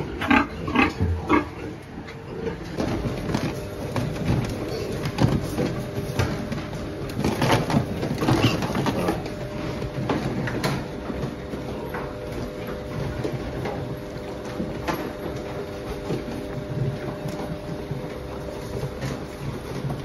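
A group of piglets grunting in short, irregular bursts, busiest in the first second or two and again about halfway through, over a steady hum.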